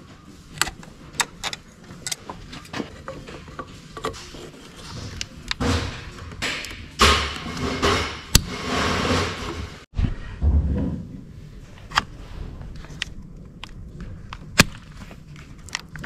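Hand-tool work in a car engine bay: scattered clicks and knocks of pliers and coolant hoses being handled, with a longer noisy scraping and rubbing stretch about six to nine seconds in.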